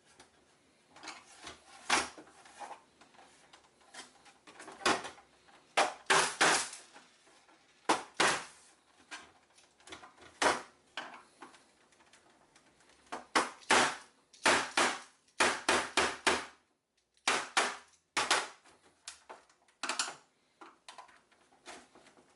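Hammer blows on a chisel driven into a plastic external hard drive casing: irregular sharp knocks, some single and some in quick runs of three or four.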